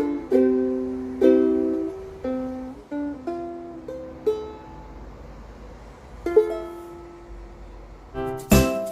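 Koaloha long-neck soprano ukulele played fingerstyle: single plucked melody notes that thin out, then one note left ringing. Near the end a louder, brighter chiming jingle starts.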